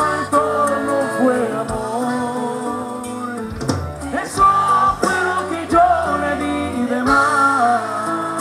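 Live band music: a man singing lead over a strummed twelve-string bajo sexto and band accompaniment.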